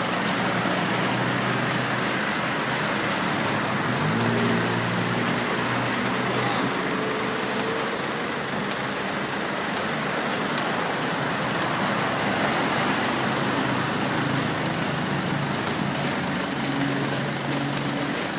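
Steady road traffic noise, with no siren sounding.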